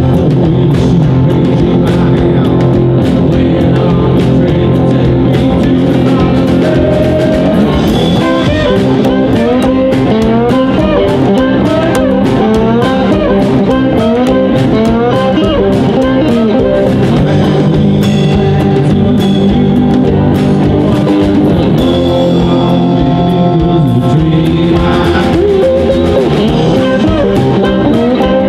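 A live band playing an instrumental blues-rock passage on electric guitars, upright double bass and drum kit, with a harmonica.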